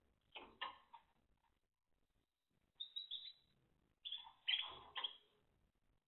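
Timbrado canaries giving short chirping calls in three brief bursts: just after the start, around three seconds in, and again from about four to five seconds in.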